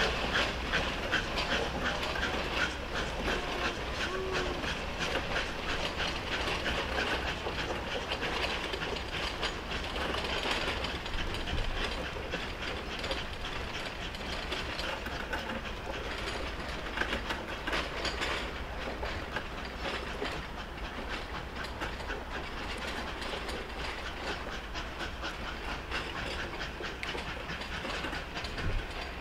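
Narrow-gauge steam locomotive and its train running, with a quick, even beat of exhaust chuffs over a steady rumble.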